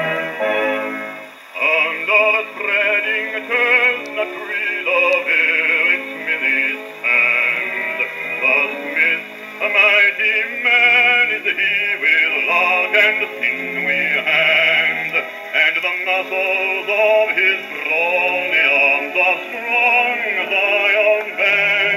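A 78 rpm shellac record playing on a portable wind-up gramophone: a bass voice singing a ballad with orchestral accompaniment. The sound is thin and narrow, with no deep bass and dull treble, as is typical of an acoustic soundbox.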